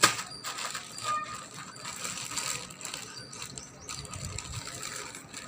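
Hard plastic toys and packaging being handled: a sharp click at the start, then a steady run of small clacks, taps and crinkly rustling.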